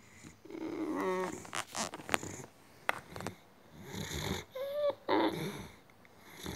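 A boxer dog breathing noisily through her nose and giving a few short whines, with some soft clicks.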